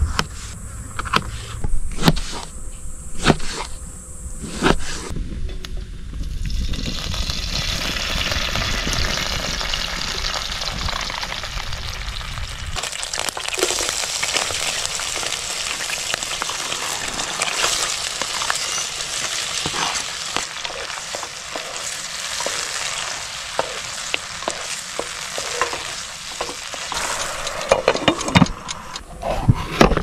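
A knife chopping on a plastic cutting board for the first few seconds, then oil sizzling steadily in a frying pan as diced tomatoes fry in it. A few knife knocks come again near the end.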